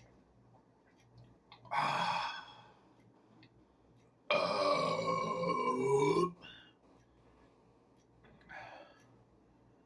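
A person burping: a short breathy sound about two seconds in, then one long, loud burp of about two seconds with a wavering pitch, and a faint short sound near the end.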